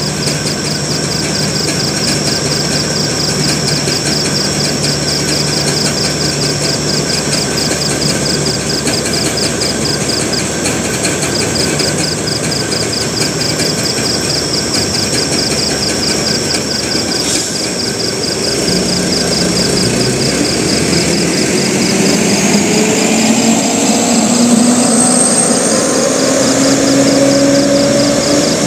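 Heavily loaded truck's diesel engine labouring up a steep grade: a steady low drone, then from about two-thirds through the engine note rises in pitch and grows louder as the truck pulls up close.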